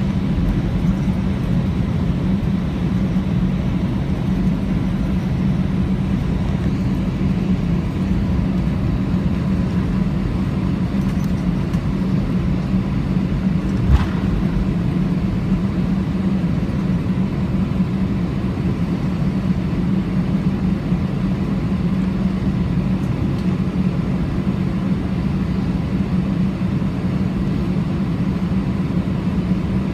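Steady cabin rumble and hum inside an Airbus A319 taxiing after landing, its engines at idle. A single sharp click comes about halfway through.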